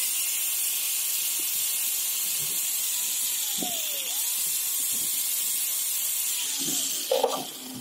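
Electric hand drill running with a steady high whine, drilling into the metal of a starter motor's carbon brush holder to cut away its grounded part. The motor's pitch sags under load around the middle, then it winds down about seven seconds in and a couple of sharp clicks follow.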